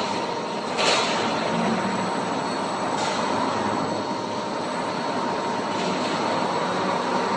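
Wrapping winding machine running: steady mechanical noise with a constant whine as its jig rotates and travels. There is a short burst of hissing noise about a second in.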